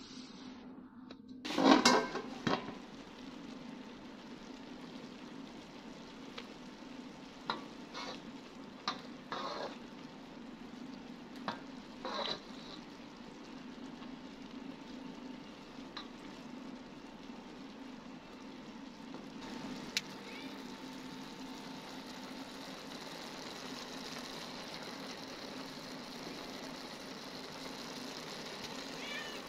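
Chicken pulao sizzling in a steel karahi while a metal ladle stirs it and scrapes against the pan in several sharp clinks; a short loud clatter about two seconds in.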